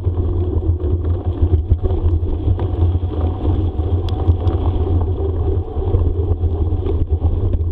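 Bicycle rolling fast over a dirt forest trail, with wind buffeting the microphone as a steady low rumble and light rattles and clicks from the bike.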